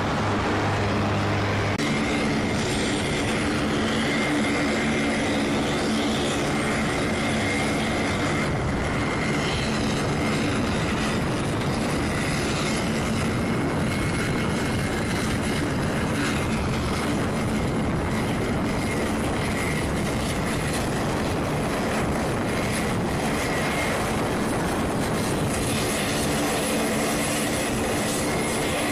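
The four Rolls-Royce AE 2100 turboprops of a C-130J Super Hercules running as it taxis: a loud, steady propeller drone with a high whine held over it.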